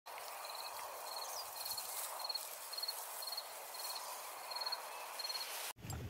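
An insect, cricket-like, chirping in short pulsed trills about every half second, over a steady outdoor hiss; the ambience cuts off suddenly near the end.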